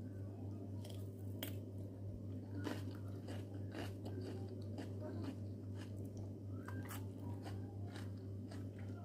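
A person chewing a mouthful of salad of lettuce, apple and tomato close to the microphone, a run of short wet clicks and crunches scattered irregularly through, over a steady low hum.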